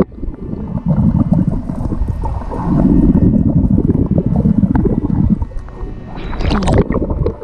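Muffled underwater gurgling and churning of water from a swimmer's strokes, heard through a submerged action-camera microphone. About six seconds in the camera breaks the surface and there is a short spell of sharp splashing.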